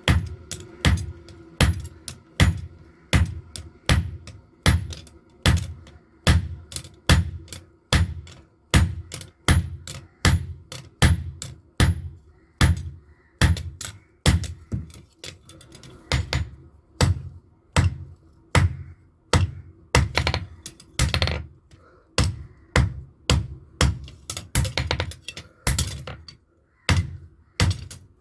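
Blacksmith's hand hammer striking a knife blade on an anvil, a steady run of ringing blows about two a second with short pauses between groups.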